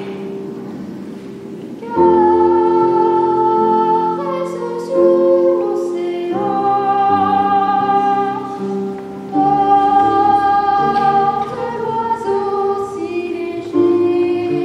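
A boy's solo treble voice singing long held notes over digital piano accompaniment, with the voice coming in about two seconds in after a short piano passage.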